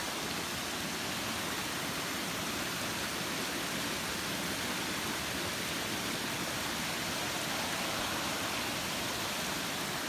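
A mountain stream rushing steadily over rocks.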